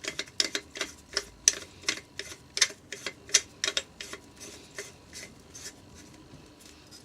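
Quick, irregular small clicks and ticks of the screw-on top cap being turned down onto a Mikuni 28SC carburettor body by hand, several a second, thinning out after about four seconds.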